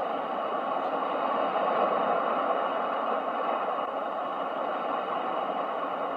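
Continuous ocean surf, a steady rushing wash that swells gently about two seconds in and then eases back.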